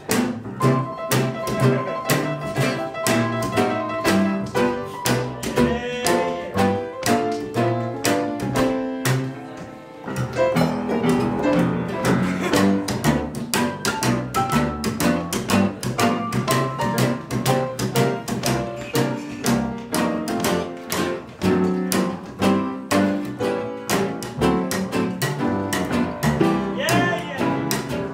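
Small acoustic band playing an instrumental passage: a plucked upright double bass and a strummed acoustic guitar keep a steady beat under held melody notes. The music drops away briefly about ten seconds in, then comes back.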